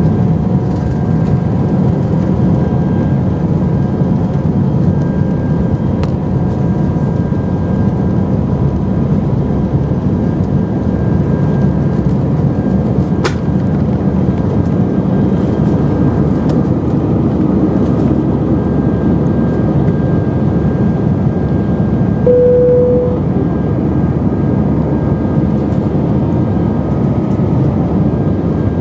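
Airbus A319 twin jet engines at take-off power, heard from inside the cabin: a loud, steady rush with faint whining tones over it, through the take-off roll and the climb after lift-off. A short click sounds near the middle, and a brief steady tone about three quarters through.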